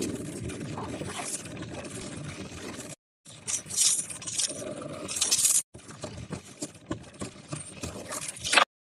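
Scraping and rattling of objects being handled, broken into short pieces by abrupt cuts to silence, with a sharp click just before the last cut.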